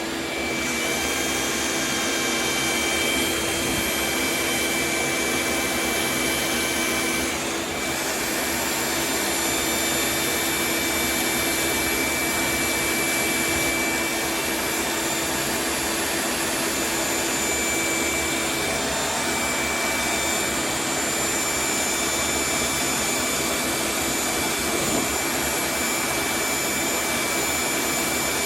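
Vacuum running steadily while the cured resin fill coat of a surfboard ding repair is sanded down with 120-grit. The sound is a continuous, even hiss with a few steady whining tones.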